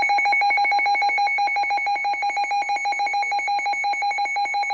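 Emergency Alert System alert tone: a loud electronic trill of several steady pitches, pulsing rapidly and evenly, signalling an incoming severe weather warning.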